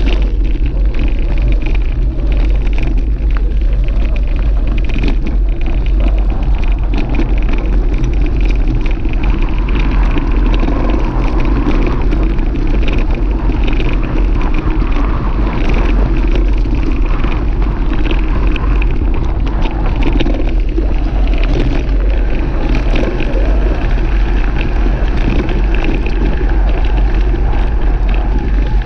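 Steady loud rumble of riding over a rough dirt track, with many small knocks and rattles from the bumps.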